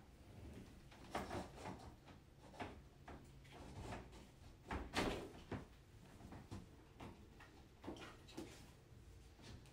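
Grow-out pen parts knocking and clicking as the top frame is fitted onto the stacked layers, a few scattered knocks with the loudest about five seconds in.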